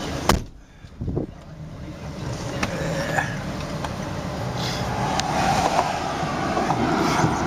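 A vehicle door slams shut with a sharp knock, and the steady wind noise drops away for a moment. A second thump follows, then a steady wind-like rumble builds again.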